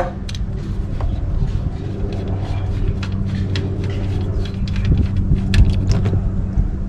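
Steady low engine-like hum, with scattered small clicks and metallic taps of a wrench working the oil pan drain plug loose and out, and a sharp knock right at the start.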